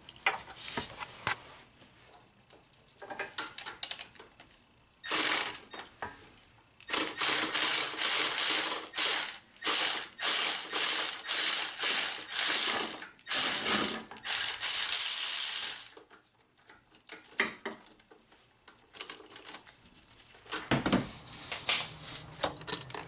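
Half-inch-drive ratchet on a 14 mm socket and a run of extensions, clicking rapidly in several loud bursts as the loosened starter mounting bolt is spun out. The bursts start about five seconds in and stop about sixteen seconds in, with a few quieter knocks before and after.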